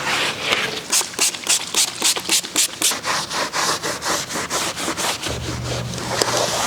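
Rapid back-and-forth scrubbing strokes of hand cleaning on the car, about five strokes a second, with a faint low hum joining near the end.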